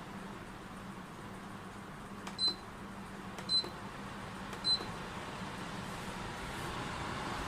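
Shark PJ-A36TVW air cooler's control panel beeping three times, about a second apart, over the steady rush of its running fan.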